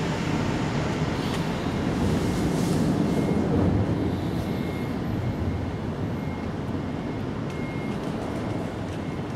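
Steady rumble of road traffic, the constant background of an urban street.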